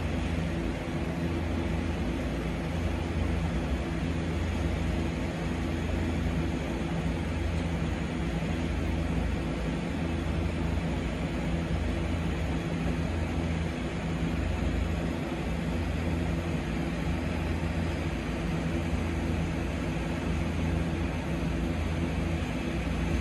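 Butane torch lighter's jet flame burning steadily as it toasts and lights the foot of a cigar: an even rushing hiss, with a steady low hum underneath.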